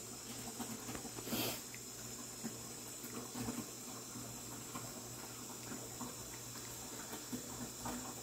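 Siamese cat eating wet cat food in gravy from a plate: a run of small, irregular wet smacks, licks and chewing clicks. There is one louder, brief burst of noise about a second and a half in, over a steady low hum.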